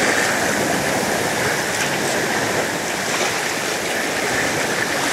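Steady rush of sea water along the hull of a sailing ketch under way, with wind noise mixed in.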